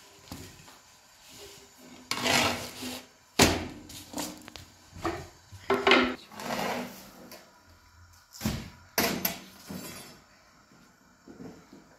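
A long thin wooden rolling pin handling thin flatbread dough: irregular wooden knocks and taps with short rustling swishes of the dough sheets, the sharpest knocks about three and a half and eight and a half seconds in.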